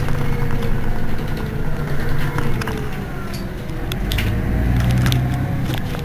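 Mercedes-Benz Citaro city bus engine idling while the bus stands at a stop: a steady low hum that swells slightly about four seconds in, with a few sharp clicks in the middle.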